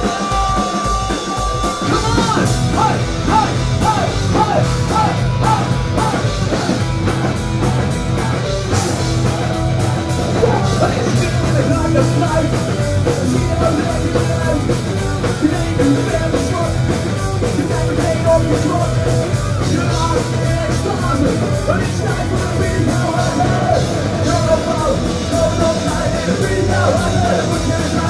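Punk rock band playing live, with drum kit, bass guitar and loud singing.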